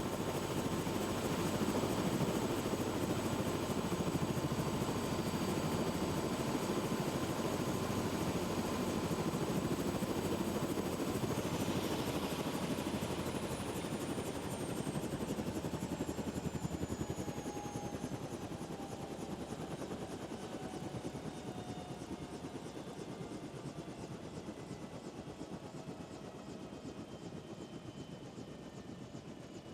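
Steady rushing vehicle noise with thin whining tones. About halfway through, the whine slides down in pitch, and the sound grows gradually quieter toward the end.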